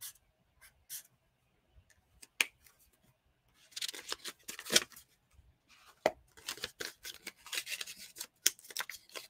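Paper rustling and scratching off camera, after a few light clicks in the first seconds.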